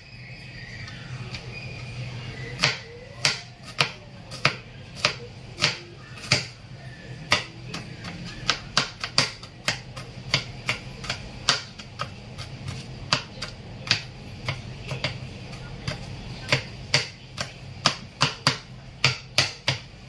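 Chinese cleaver chopping garlic on a plastic cutting board: sharp single chops, irregularly spaced at about one to two a second, with quicker runs of strokes near the end. A steady low hum runs underneath.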